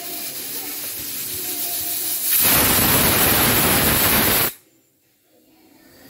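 Pressure cooker whistle letting off steam: a steady hiss, then a loud rush of steam for about two seconds that stops abruptly.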